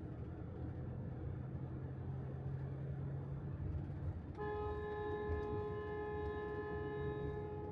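A vehicle horn sounds one long, steady blast of about three and a half seconds, starting a little past halfway, over the low running of a bus engine. It is a warning honk, the usual signal on Vietnamese roads that a vehicle is coming up or overtaking.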